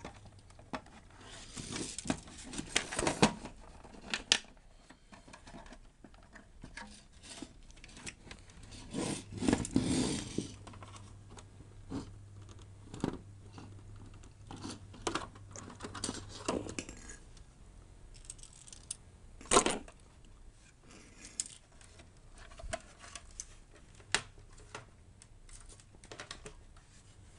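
Hands working at the plastic parts inside a disassembled PS4 console: scattered clicks, taps and scraping of plastic, with a louder sharp click about twenty seconds in.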